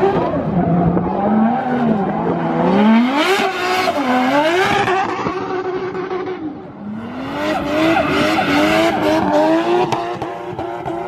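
A drift car sliding under power: the engine revs rise and fall several times as the spinning rear tyres screech and smoke, with a brief lull about two-thirds of the way through.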